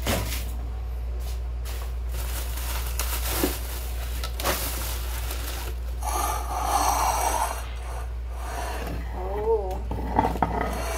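Groceries being handled on a countertop: plastic packaging rustling and items knocking against the counter and bowl, over a steady low hum.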